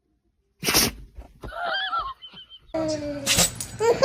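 A dog sneezing: a short sharp burst just over half a second in and another past three seconds, with a high wavering voice-like sound between them.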